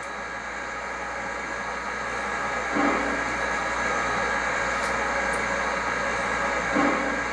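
Onboard Proto-Sound 3.0 sound system of an MTH One Gauge Union Pacific Big Boy model playing steam locomotive standing sounds during its extended startup. A steady background slowly grows louder, with a short, louder low sound near the start and again about four seconds later.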